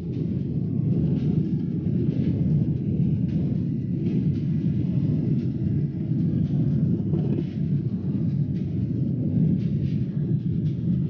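Airliner jet engines running at high power, a steady, dense low rumble with no breaks.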